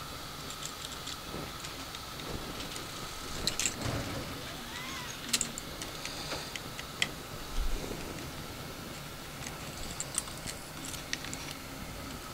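Scattered small metallic clicks and taps of a screwdriver and small screws at a 3D printer's print-head fan shroud as the fan screws are taken out, over a faint steady tone.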